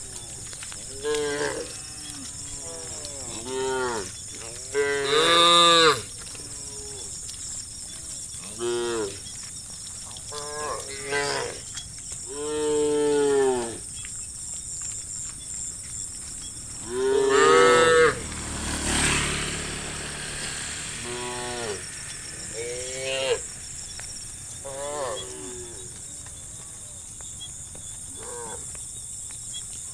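Cattle in a herd mooing, about a dozen drawn-out calls from several animals, one every couple of seconds, some louder and longer than others. A steady high-pitched hiss runs underneath.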